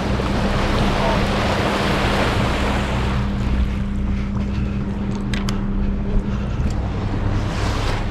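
Boat engine drone and wind on the microphone over sea wash. A steady hum drops out about two-thirds of the way through.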